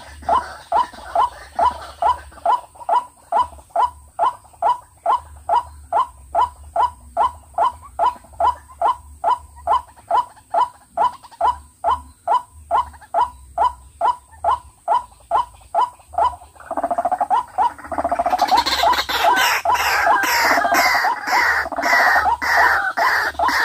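White-breasted waterhen calling: a monotonous 'kwak' repeated evenly about twice a second. About 17 s in, it gives way to a louder, harsher, busier stretch of calling.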